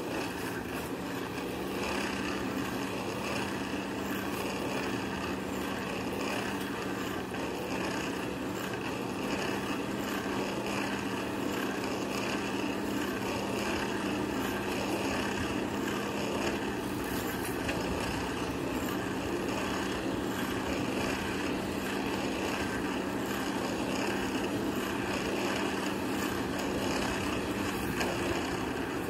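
Steady hum with a rush of air, typical of a forge blower running while iron heats in the fire; a low tone holds even throughout.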